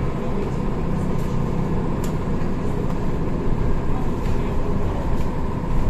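Cabin noise inside a BKM 321 trolleybus on the move: a steady low rumble from the ride, with a faint steady high tone and a few light rattles.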